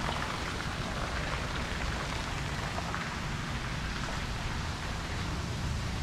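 Wind on the microphone outdoors: a steady rushing hiss with uneven low buffeting.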